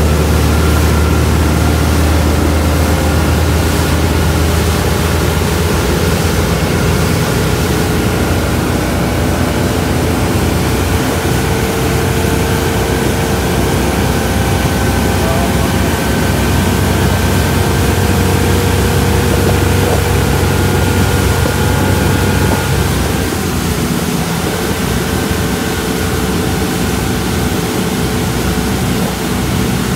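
Motorboat engine running steadily under way at speed, a low drone with wind and rushing water over it. The engine note shifts and the drone weakens slightly about three-quarters of the way through.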